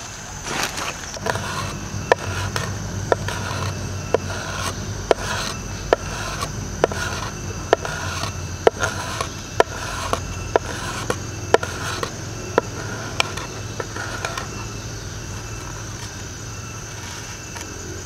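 Knife blade scraping dry bamboo into fine shavings for fire-saw tinder. The strokes come regularly, about one a second, each a short scrape ending in a sharp click, and they stop a few seconds before the end.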